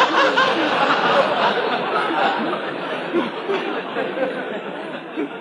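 A large audience laughing, the laughter slowly dying down.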